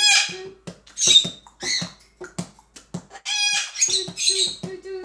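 Excited pet parrots, an African grey and a white-fronted Amazon, giving short high squeaky chirps and whistles over a run of soft knocks, about two a second. A steady low tone comes in about four seconds in.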